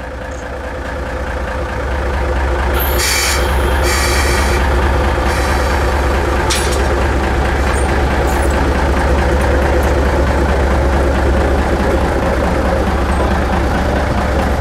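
Diesel locomotive engine running with a steady low rumble that swells over the first couple of seconds, with two short bursts of air hissing about three and five seconds in.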